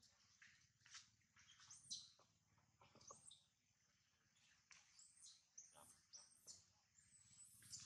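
Newborn macaque infant giving faint, repeated short high-pitched squeaky cries that rise and fall in pitch, a baby's distress crying.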